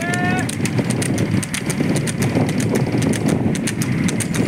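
Water buffalo bull's hooves clopping in a quick, regular beat on asphalt as it trots pulling a rubber-tyred cart, over the steady rumble of the cart rolling on the road. A short rising whistle-like call sounds right at the start.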